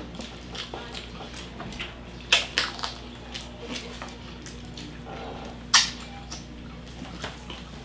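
Eating sounds from lechon, a whole roast pig: meat pulled apart by hand and chewed, with scattered sharp wet clicks and crunches. The loudest come about two and a half seconds in and just before six seconds.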